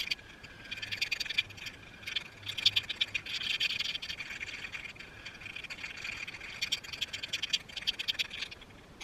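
Aerosol can of spray primer being shaken hard, the mixing ball inside rattling rapidly against the can, in a few spells that stop near the end.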